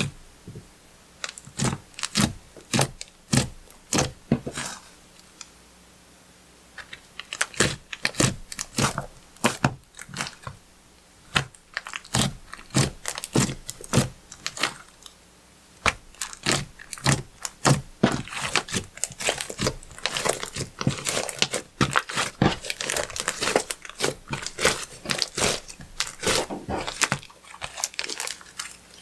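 Clear slime being squeezed, stretched and pressed by hand, making irregular sticky clicks and pops. It pauses briefly twice in the first half, then the clicking grows denser and crackly in the second half.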